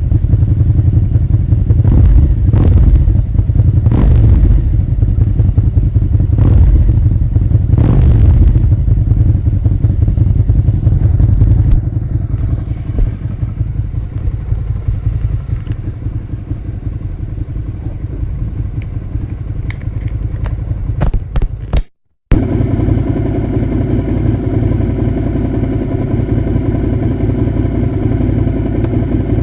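Suzuki SV650A's V-twin engine running, with several quick throttle blips over the first part and then a steadier, quieter run. The sound cuts out for a moment about two-thirds of the way through, then the engine goes on running steadily with a duller tone.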